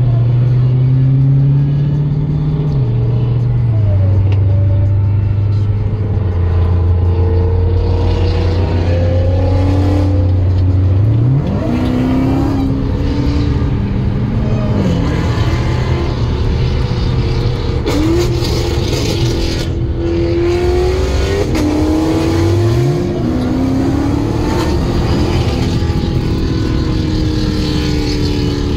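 Dodge Challenger SRT's V8 engine heard from inside the cabin, accelerating hard at highway speed. Its pitch steps down twice in the first few seconds as it shifts up, then sweeps up sharply twice, near the middle and again later, as it revs under full throttle.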